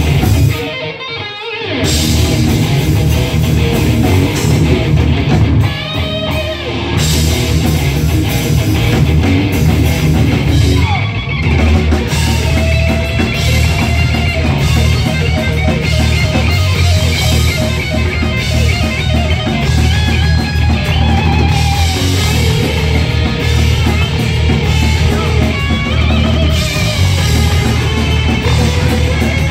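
A live heavy metal band playing electric guitars and a drum kit, with short breaks in the playing about a second in and again around six seconds in.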